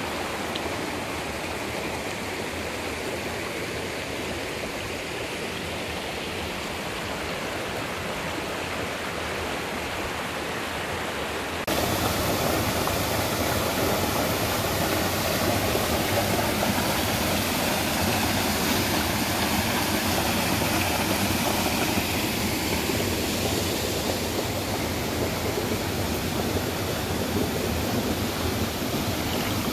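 Steady rush of a rocky stream spilling over small cascades between boulders, louder and fuller from about twelve seconds in.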